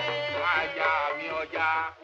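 Singing from a Yoruba folk opera: a high voice in short phrases that swoop up and down, over a low repeating beat.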